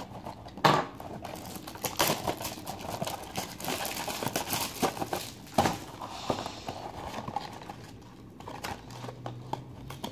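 Plastic wrap and cardboard of a retail box of trading cards being torn open and handled: irregular crinkling, tearing and crackling, with a few louder rustles.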